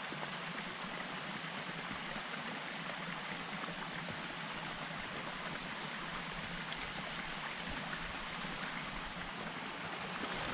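Small mountain stream running over rocks, a steady rush of water.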